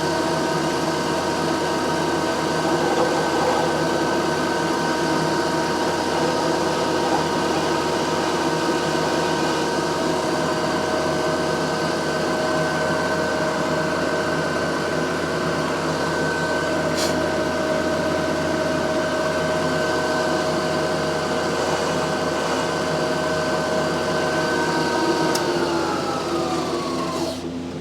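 Electric drilling machine running steadily as its bit drills out the damaged head-stud hole in a Suzuki TS400 cylinder for a Heli-coil. Near the end the motor is switched off and spins down, its pitch falling.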